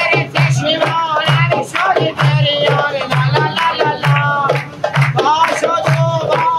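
A group of men singing together to a steady beat on a goblet drum, with hand clapping.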